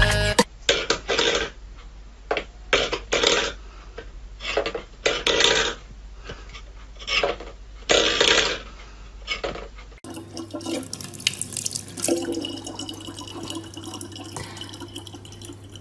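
Stainless steel bowls scraping and clattering on a wooden floor in irregular bursts. After a cut about two-thirds of the way through, a thin stream of tap water runs into a plastic bottle over a steady low hum.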